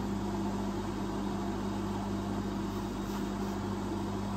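Electric motor of a bench polishing machine running steadily with its buffing wheel spinning, a constant even hum, as a gold-plated watch case is held to the wheel for polishing.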